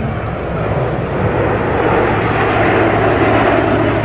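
The single-turbofan engines of a formation of Aero L-39 Albatros jet trainers passing overhead: a steady jet noise that grows slightly louder over the first two seconds.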